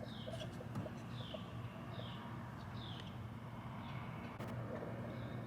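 A small bird calling: four short high notes, each sliding downward, about a second apart, with a fainter fifth near the end, over a low steady hum.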